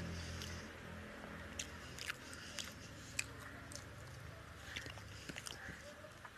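Close-up eating sounds of a man eating rice and fish curry by hand: scattered wet clicks and smacks of chewing and fingers working the rice. A low hum fades out in the first second.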